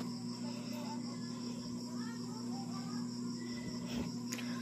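Crickets chirping steadily in a high, fast pulsing trill over a steady low hum.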